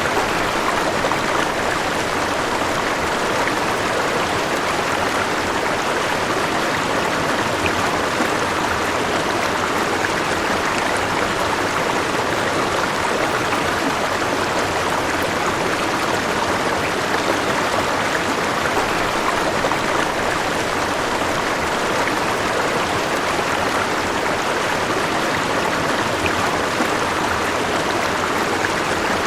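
Flowing river: a steady rush and gurgle of water running over rocks, even and unbroken.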